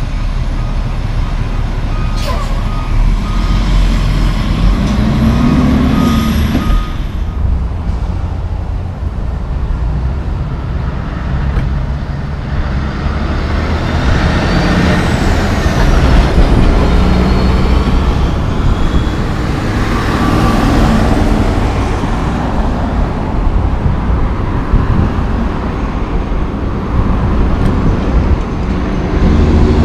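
Heavy diesel trucks going by in traffic: deep engine rumble and tyre noise swelling as a dump truck with a pup trailer and then a tandem-axle dump truck pass, with a loaded log truck approaching near the end. A repeating beep of one pitch sounds during the first several seconds.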